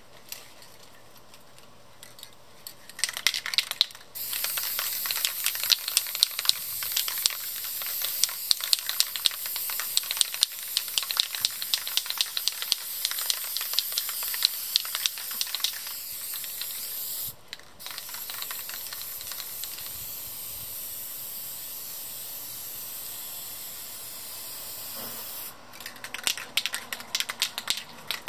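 Aerosol spray-paint can (Rust-Oleum American Accents) spraying black paint in long hissing passes, broken once briefly about two-thirds of the way through. Rattling clicks just before the spraying starts and again near the end, like the can's mixing ball being shaken.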